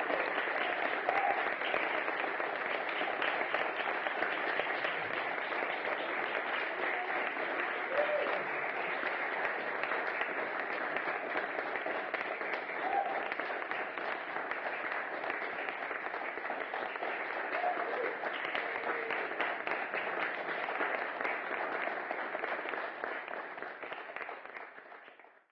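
Audience applauding, many people clapping steadily, fading out near the end.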